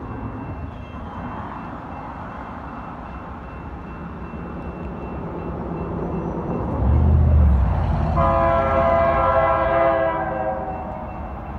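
Approaching freight train's locomotive air horn sounding one long multi-note chord of about three seconds, starting about eight seconds in, over a low rumble from the train that builds toward it.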